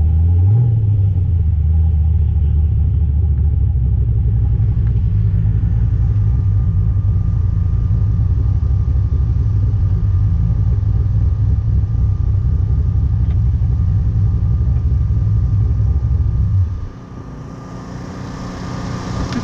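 Drag car's engine running at a steady low speed with a deep, even rumble, which cuts off suddenly near the end.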